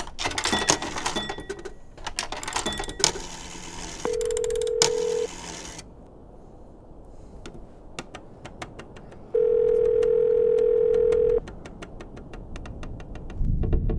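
Vintage coin-operated rotary payphone: a coin clattering into the slot with mechanical clicks, then a steady telephone tone in the handset, heard briefly about four seconds in and again for about two seconds near ten seconds, with a run of quick light clicks from the phone in between and after.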